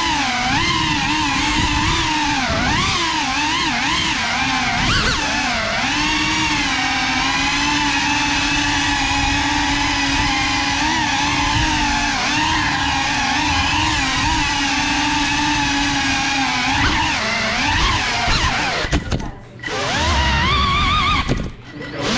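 Small FPV quadcopter's brushless motors whining, the pitch rising and falling as the throttle changes during flight. The whine drops away briefly twice near the end.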